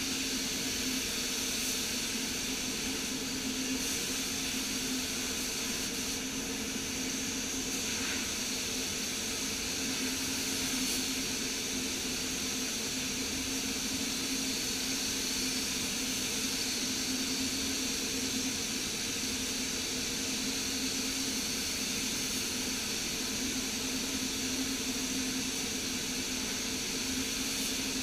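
Air spray gun hissing as it sprays paint onto a car panel, over the steady hum of a paint spray booth's ventilation fans.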